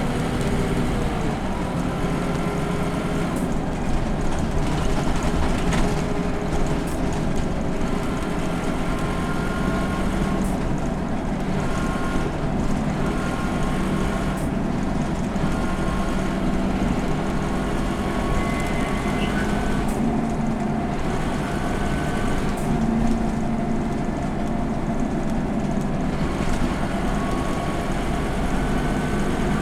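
Scania K230UB city bus driving, heard from inside the cabin: its 8.9-litre five-cylinder Scania DC9 diesel engine running under load with road rumble, and faint whining tones that come and go.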